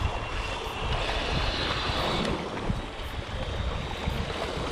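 Sea waves washing against shore rocks, with wind buffeting the microphone in uneven low rumbles.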